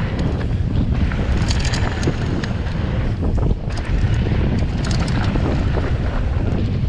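Wind buffeting the rider's action-camera microphone as a mountain bike rolls fast down a dirt trail, with tyre noise and frequent small ticks and rattles from the bike over rough ground.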